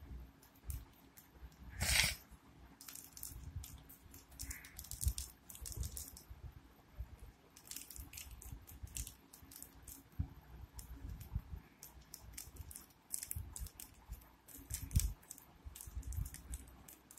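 Handling noise of a smartphone's cardboard box and paper packaging being sorted by hand: scattered clicks, rustles and light knocks, the loudest a short rustle about two seconds in.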